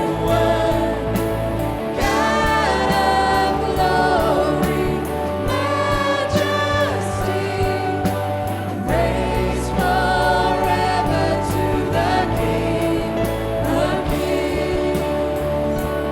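Live worship music: voices singing a melody over a band with a steady bass.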